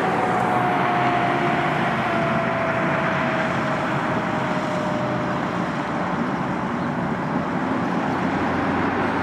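1992 American LaFrance fire engine pulling away on an emergency call, with a steady rush of engine and road noise. Its siren slides slowly down in pitch and fades out about halfway through.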